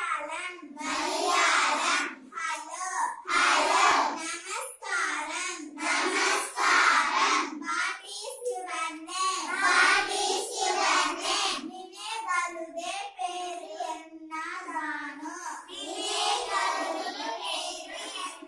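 A class of young schoolchildren chanting phrases together in a sing-song unison, their voices in short repeated phrases of a second or two with brief breaks between.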